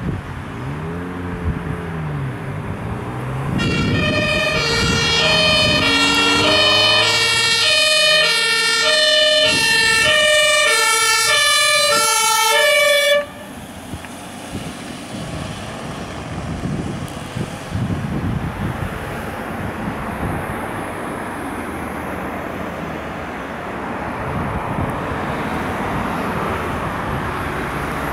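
German ambulance's two-tone siren (Martinshorn) alternating between a high and a low note, loud from about four seconds in and cutting off suddenly about 13 seconds in. After that comes the ambulance's engine and tyre noise as it drives past.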